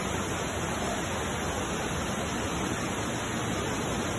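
Heavy rain and floodwater making a steady, even rushing noise.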